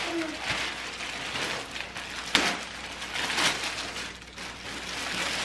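Rustling and crinkling as a soft garment and its wrapping are handled, with a sharper crackle about two and a half seconds in.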